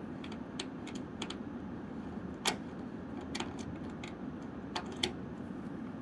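Long 3/16-inch Allen wrench unscrewing the bolt at the end of a truck bed cover's spring reel: scattered light clicks at uneven spacing as the wrench turns in the bolt head, the loudest about two and a half seconds in.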